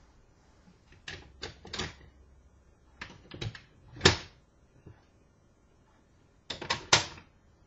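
Scattered sharp clicks and taps in small clusters: a few about a second in, more around three seconds, the loudest single tap about four seconds in, and a last quick cluster near the end.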